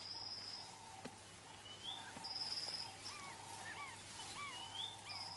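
Faint bush ambience of several birds calling: a high trilled note repeated three times, with short rising chirps and quick arched notes between them, over a steady faint hum.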